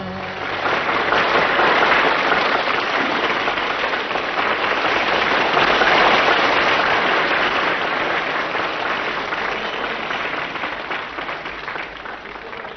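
Concert audience applauding as a live song ends. The clapping swells twice, about two and six seconds in, then slowly dies away.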